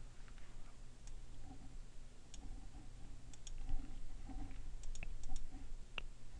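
A few scattered computer mouse clicks over a low steady hum.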